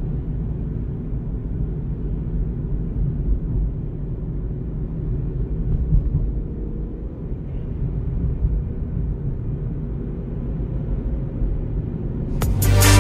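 Steady low rumble of a vehicle driving along a highway: engine and tyre noise with a faint steady hum. Electronic music with a heavy beat cuts in suddenly near the end.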